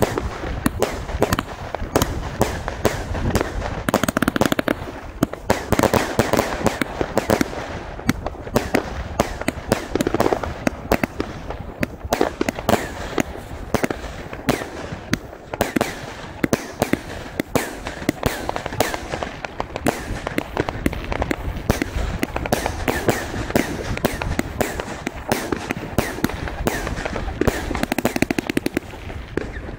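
Argento Pyroshow 2000 Hermes firework compound cake, 20 mm calibre, firing continuously. Its tubes go off in a rapid, unbroken run of shots, several a second, the launches mixed with bursting effects.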